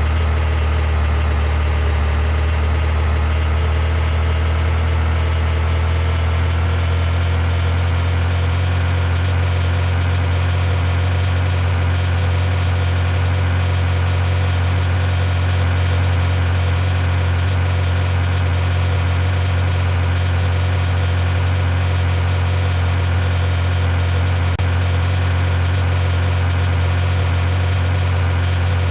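Vehicle engine idling, a steady low hum that holds unchanged.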